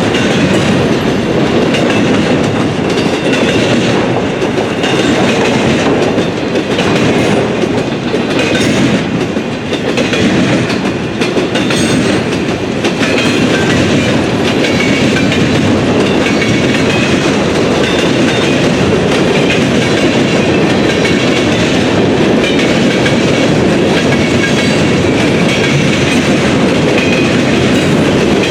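Freight train rolling past, its steel wheels clattering steadily over the rails, with a slight dip in level about ten seconds in.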